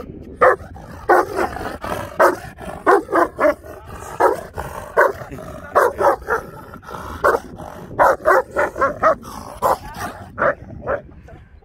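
Central Asian Shepherd Dog (Turkmen alabai) barking over and over in irregular runs, about two barks a second.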